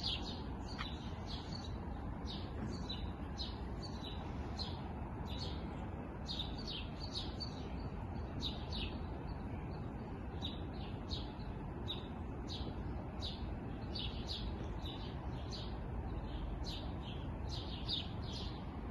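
Small songbirds chirping: a continuous run of short, quick chirps, a couple or so each second, over a steady low rush of background noise.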